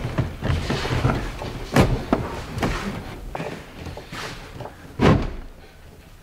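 Marine-plywood transom board knocking and scraping against the aluminum boat hull as it is lowered into place, with two sharp thumps about two seconds in and five seconds in, the second the louder.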